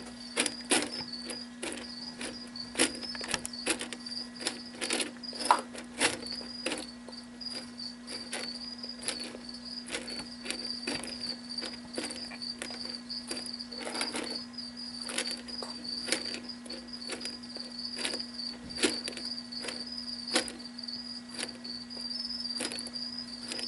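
Jeweled lacerta (ocellated lizard) biting and chewing a raw rabbit heart: irregular sharp clicks and smacks from its jaws, bunched closely in the first few seconds and sparser later. Under them a cricket chirps steadily at a high pitch over a low, even hum.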